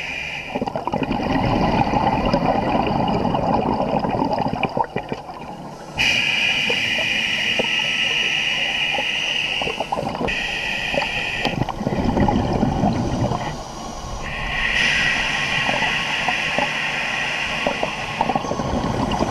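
Scuba diver breathing through a regulator underwater: stretches of gurgling exhaled bubbles lasting several seconds alternate with a steady hissing inhalation, in slow breaths.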